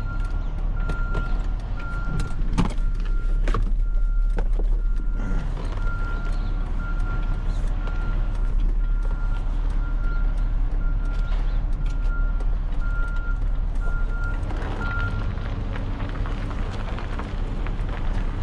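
Heavy vehicle engine running with a steady low rumble, while a reversing alarm beeps about once a second and stops about three-quarters of the way through. A few sharp knocks sound about three seconds in.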